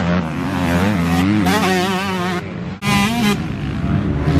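Yamaha YZ125 two-stroke motocross bike revving hard around a dirt track, its engine note climbing and dropping over and over with throttle and gear changes, with a brief drop in level about three seconds in.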